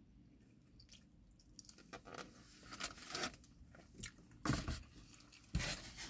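A person chewing and crunching takeout food, with small mouth clicks. Near the end come two louder bursts of handling noise.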